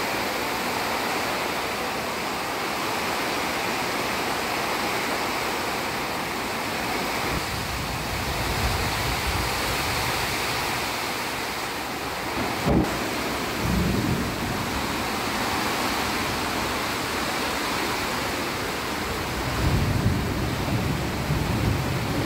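Heavy rain on a tin roof, a steady loud hiss. Low rumbles of thunder come and go several times, with one sudden sharp crack about halfway.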